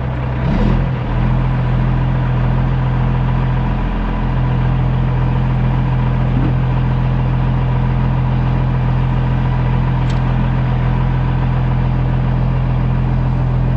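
Cummins ISX diesel of a 2008 Kenworth W900L idling steadily, a constant low hum with no change in engine speed.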